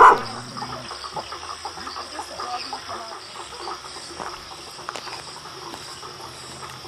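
Jungle chorus of frogs and insects: many short overlapping calls and chirps over a steady high insect drone. A single loud dog bark comes right at the start.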